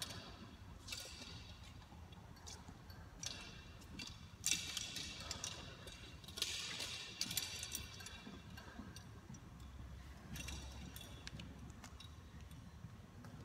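Brief swishes and light clicks every second or two, from an acrobat's movements on gym apparatus, over a low steady hum.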